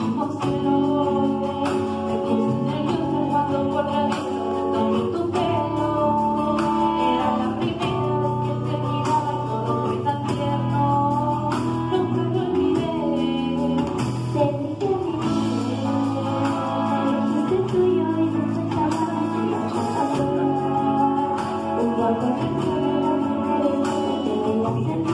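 A sextet of schoolchildren singing a song together into handheld microphones, amplified, over a steady instrumental backing.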